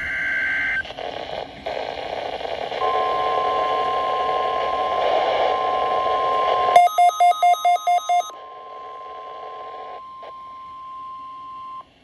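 Midland weather-alert radio picking up a NOAA Weather Radio Required Weekly Test. The tail of a warbling SAME data burst opens the clip, then a steady 1050 Hz attention tone comes in over hiss. About seven seconds in, a quick run of sharp electronic beeps sounds for a second and a half, and the tone then carries on more faintly until it cuts off just before the end.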